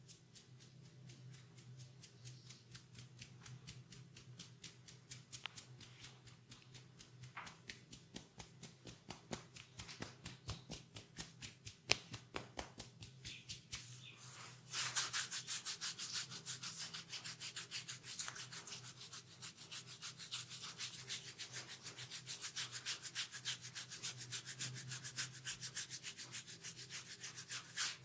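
A barber's hands rubbing briskly and rhythmically during a massage, several strokes a second, getting louder and denser about halfway through. There is one sharp click near the middle.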